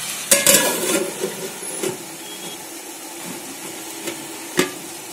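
Aluminium lid clattering down onto an aluminium cooking pot, with a short metallic ring about half a second in, then a single sharp tap near the end. Under it, a steady hiss from the chicken cooking in the pot.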